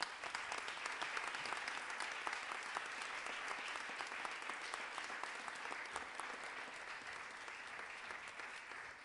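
Audience applause: many people clapping steadily, starting to thin out near the end.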